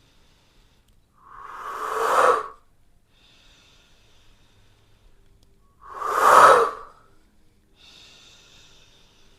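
A person blowing out two long, forceful breaths close to the microphone, about four seconds apart; each grows louder and then stops sharply.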